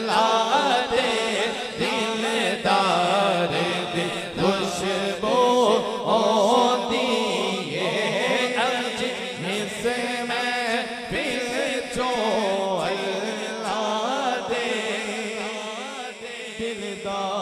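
A male naat reciter sings an unaccompanied devotional naat over a PA system in long, ornamented, wavering phrases. A second voice holds a steady drone underneath.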